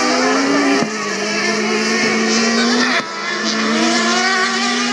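Autocross race cars running on a dirt track, their engines revving high; the engine pitch climbs and then falls back sharply about a second in and again about three seconds in.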